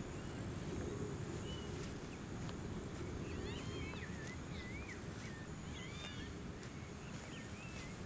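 Grassland nature ambience: a steady high-pitched insect drone, with a bird giving short rising and falling chirps from about two and a half seconds in until near the end, over a low steady rumble.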